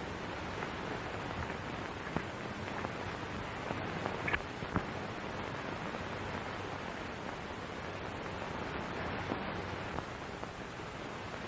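Steady hiss of an old film soundtrack, with no dialogue or music, and a few faint clicks about four to five seconds in.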